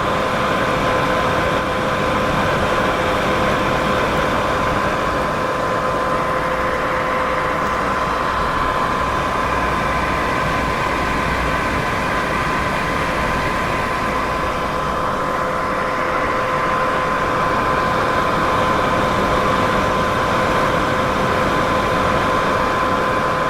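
Steady white noise: an even, constant hiss with two faint steady humming tones running through it.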